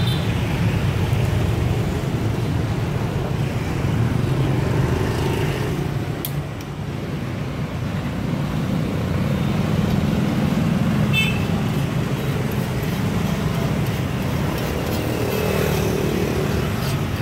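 Steady street traffic: motorbike and car engines running and passing on a busy road, a continuous low rumble.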